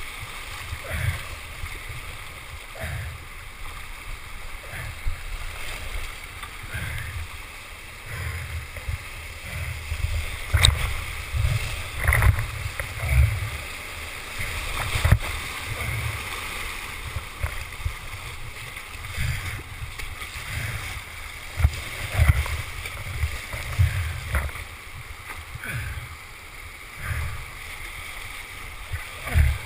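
Whitewater rushing and splashing, heard through a helmet-mounted camera, with many irregular low thumps and a few sharp clicks on the camera.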